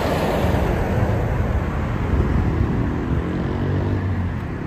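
Articulated lorry passing close by, a loud rush of engine and tyre noise that eases off, followed from about two and a half seconds in by the steady engine drone of further road traffic.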